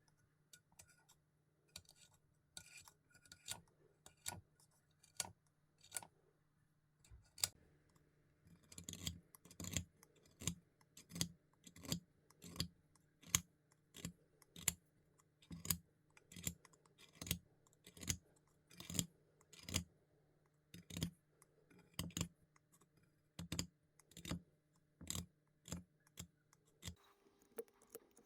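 A steady run of short, sharp clicking strokes, sparse at first, then regular at about one and a half a second, over a faint steady hum that stops shortly before the end.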